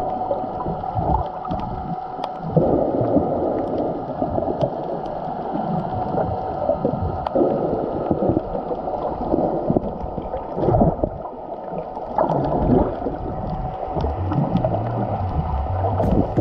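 Underwater sound picked up by a submerged camera while snorkeling: muffled water rushing and gurgling, with a faint steady hum and scattered sharp clicks.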